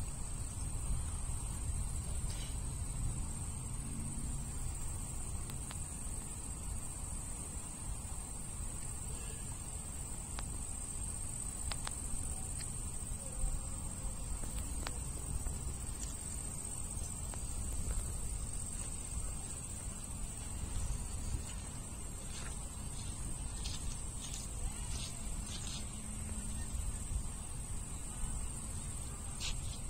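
Crickets trilling: one continuous high-pitched trill over a low background rumble, with a few short, higher chirps near the end.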